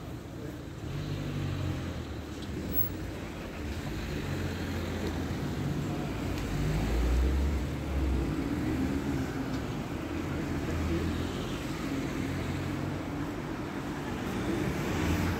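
Street traffic: motor vehicles driving past, with engine noise building and one vehicle passing close about halfway through.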